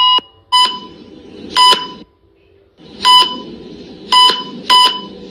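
Hospital patient monitor alarm beeping: five short, sharp beeps at uneven intervals over steady background noise, with a longer alarm tone cutting off just at the start. This is the kind of alarm noise hospital staff find irritating.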